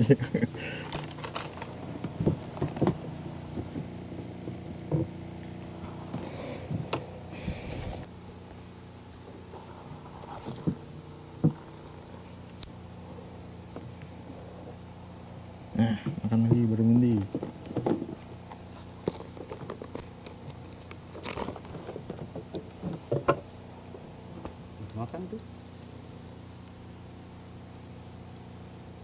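Steady high-pitched chorus of insects from the mangroves, with scattered light knocks and clicks and a short burst of a voice about sixteen seconds in.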